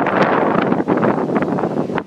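Strong wind from an approaching tornado buffeting a phone's microphone: a loud, gusty rushing that surges and dips.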